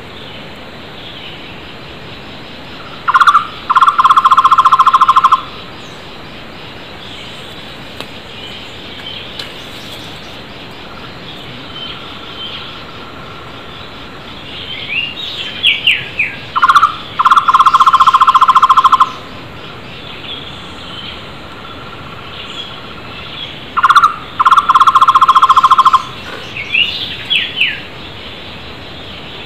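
Flame-fronted barbet (takur tohtor) calling three times, each bout a short note followed by about two seconds of rapid, evenly repeated hollow notes. Other wild birds chirp with short higher-pitched notes and quick downward whistles between the bouts.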